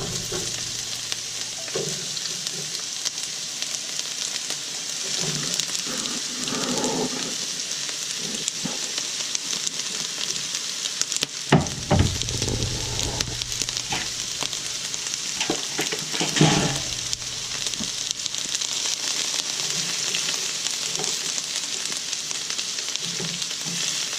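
Sliced onions sizzling steadily in hot olive oil in a frying pan, with a few short knocks and clatters, the loudest about halfway through.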